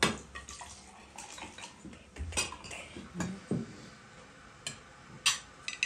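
Dishes and cutlery clinking at a table: a metal serving spoon knocking and scraping on china plates as rice pilaf is served, a string of separate sharp clinks rather than a steady sound.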